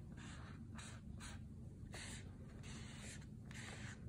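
Textured cloth being rubbed and dragged over wet ink on watercolour paper, in short scratchy strokes about two a second, to draw lines with the cloth's weave.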